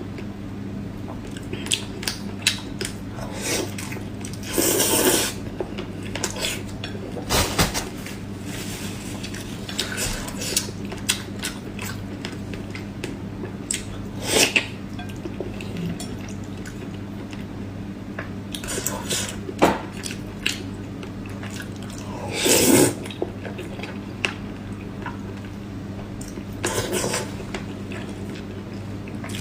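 Eating at a bowl: utensils click and clink against the dish at irregular intervals, with a few louder half-second scraping or crunching bursts. A steady low hum runs underneath.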